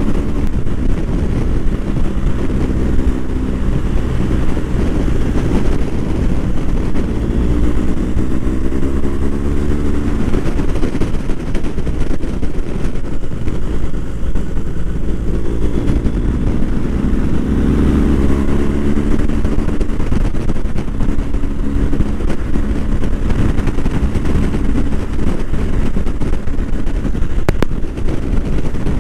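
BMW R1250 GS boxer-twin engine running on the move, its note rising and falling a few times, under a heavy rumble of wind on the microphone.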